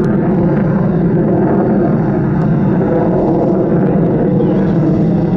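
Loud, steady jet noise from an F-15 fighter flying a low pass.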